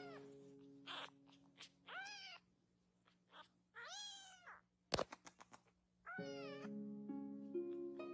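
A tiny young kitten mewing: about four short, high cries, each rising then falling in pitch, over soft background music. A cluster of sharp clicks comes about five seconds in.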